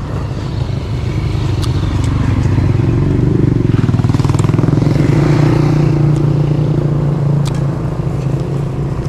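A motor vehicle's engine running close by, getting louder toward the middle and easing off near the end.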